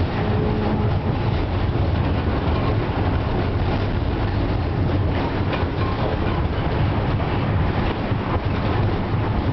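FVV CSM-4 articulated tram running, heard from inside the passenger car: a steady low rumble of wheels on the rails with scattered clicks.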